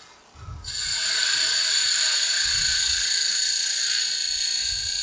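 Turning tool cutting the edge of a spinning aspen goblet blank on a wood lathe: a steady, high-pitched scraping whine of the cut. It breaks off right at the start as the tool leaves the wood and starts again about half a second in.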